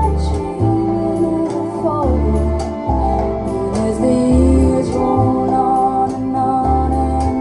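A recorded song: a woman singing over organ, guitar and deep bass notes that change about once a second, played back through a hi-fi system.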